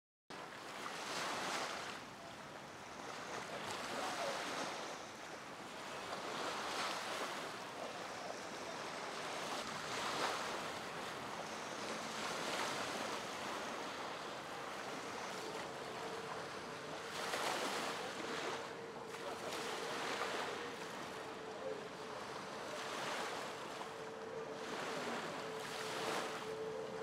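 Gusty wind buffeting the microphone over the wash of choppy river water, swelling and easing every couple of seconds. A faint steady hum comes in about halfway through.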